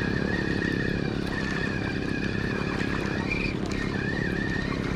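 An engine running steadily, with a fast low pulsing and a high wavering whine above it.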